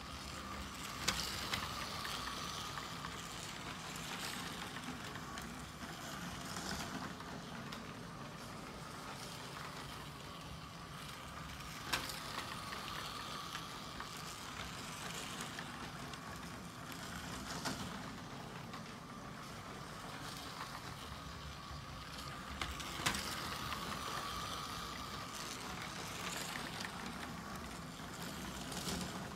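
A LEGO train motor whirring and its wheels rattling along plastic LEGO track, the whine swelling each time the streetcar passes close, about every eleven seconds, with a few sharp clicks as it goes by.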